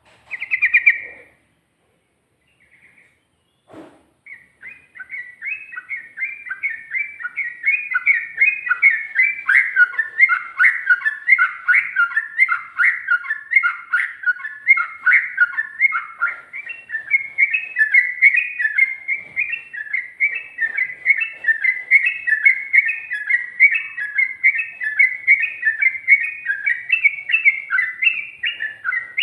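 Yellow-vented bulbul (trucukan) singing a rapid, unbroken run of warbling notes that starts about four seconds in, after a short opening call and a click.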